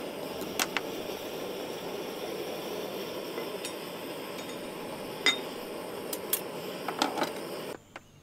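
A handful of short, sharp clinks scattered over a steady background hiss, the loudest about five seconds in; the hiss cuts off suddenly near the end.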